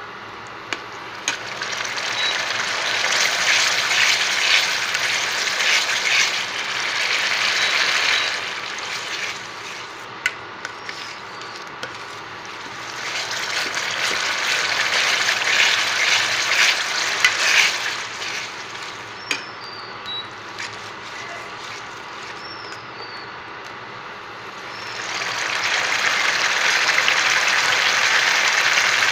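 Spice paste frying in hot oil in a steel pan while being stirred: a sizzle that swells loud and dies back three times, with a few sharp taps of the spatula against the pan.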